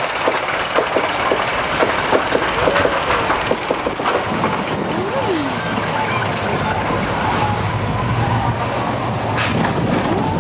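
Primeval Whirl spinning wild-mouse coaster car running on its track: a regular clicking of about three a second at first, then the rush of the car rolling and spinning along the rails with wind on the microphone and a low steady rumble.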